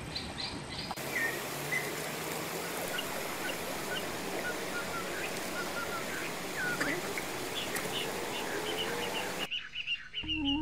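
Birds chirping in short scattered calls over a steady outdoor hiss. Near the end, music with held notes comes in.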